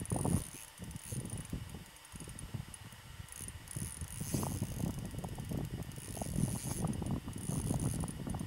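Open-face spinning reel on an ultralight rod being cranked through a retrieve: a thin, high gear whine that comes and goes with the cranking, with mechanical ratcheting. An uneven low rumble runs underneath.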